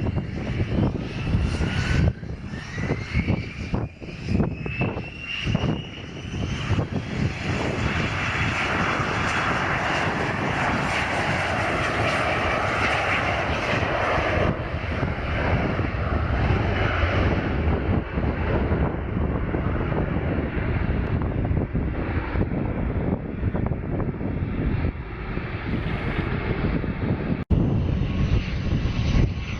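Turboprop aircraft engines powering up: a whine rises in pitch over the first several seconds, then gives way to a loud, steady engine and propeller noise. Wind gusts buffet the microphone in the first few seconds.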